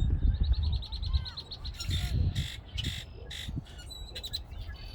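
Several birds calling: a fast run of high, repeated chattering notes for about two seconds, then short harsh squawks and chirps. A low rumble sits underneath during the first half.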